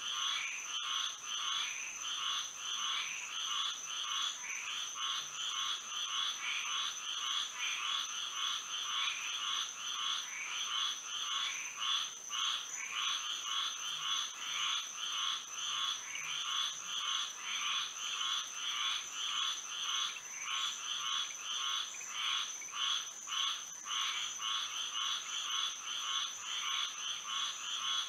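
Night chorus of many frogs calling at once, a dense rapid pulsing of overlapping calls, with a steady high-pitched whine above them.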